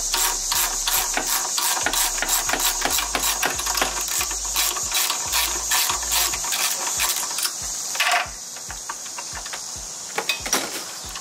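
Ratchet wrench clicking in a steady rhythm, about four clicks a second, as the car's grounding bolt is loosened. The clicking stops with a knock about eight seconds in, and a steady high hiss carries on underneath.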